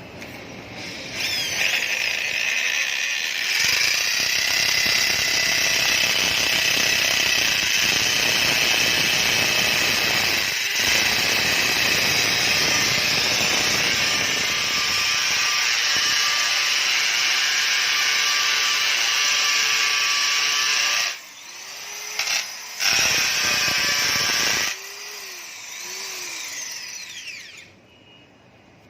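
Electric drill with a 6 mm bit boring into marble, running steadily for about twenty seconds. It stops, gives two short bursts, runs again for a couple of seconds, then runs more quietly before cutting out near the end.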